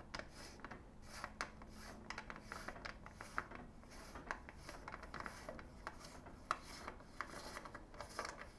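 Bottom bracket tool turned with a ratchet, unscrewing a bicycle's bottom bracket cup: faint, irregular clicking with metal rubbing and scraping.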